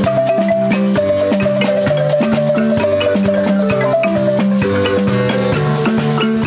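An ensemble of wooden marimbas played with mallets, several interlocking parts in a fast, steady rhythm. From about a second in until about four seconds, one high note is struck in a quick roll.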